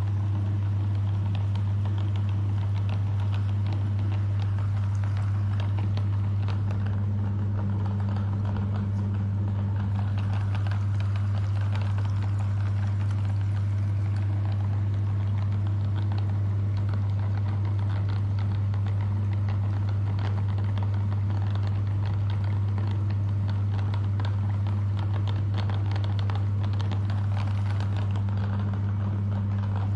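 Electric meat grinder motor running steadily throughout, a deep constant hum with a fine crackling of the grinding above it.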